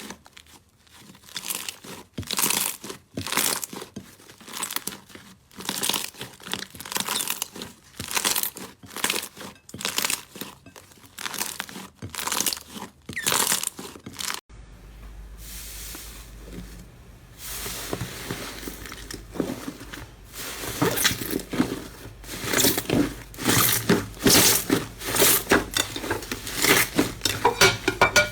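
Slime being squeezed and pressed by hand, crackling and crunching in short bursts about a second apart. About halfway through it changes to another take, with a steady low hum under denser crackling.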